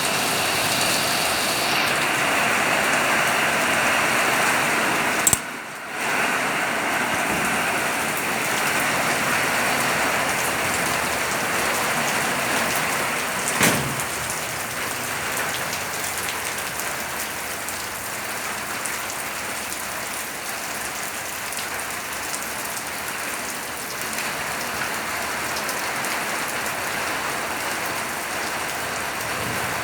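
Steady heavy rain falling and pattering on surfaces. A sharp click about five seconds in is followed by a brief drop in the rain sound, and a single sharp knock comes near the middle.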